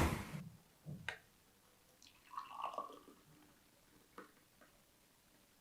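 Hot herbal decoction being strained: faint liquid pouring and dripping through a strainer, with light clinks about a second in and again about four seconds in.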